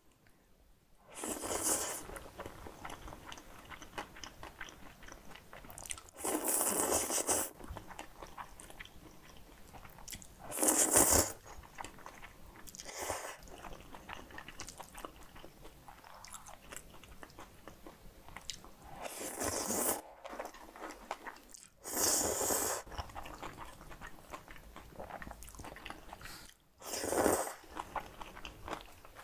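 Close-miked eating of thin noodles (somyeon) in a spicy kimchi bibim sauce. About six loud slurps of a second or so come a few seconds apart, with wet chewing between them.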